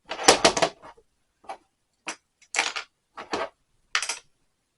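Metal hand tools clinking and clattering as they are handled and set into a toolbox: a quick clatter at the start, then a string of separate clinks about every half second.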